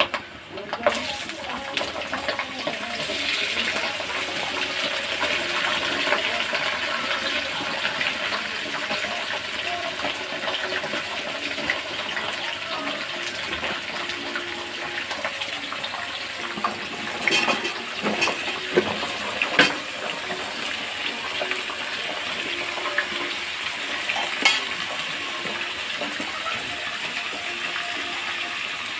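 Cut vegetables sizzling as they go into hot oil in a wok: a steady hiss, loudest in the first several seconds. A few sharp clatters come around the middle and once more later, as pieces drop in or a utensil touches the pan.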